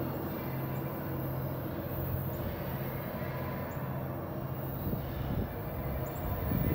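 Two EMD GP15-1 diesel-electric locomotives working hard to haul a fully loaded rock train up a steep grade, heard from a distance as a steady low engine drone.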